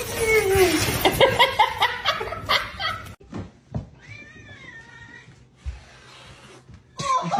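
Cat yowling and meowing: a long, falling yowl at the start among sharp clicks and knocks, then a quieter, wavering call about four seconds in.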